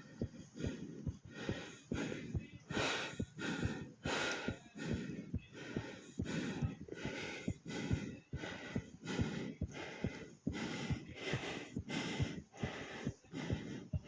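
Fast heartbeat thumping a little under twice a second, with hard, heavy breathing over it.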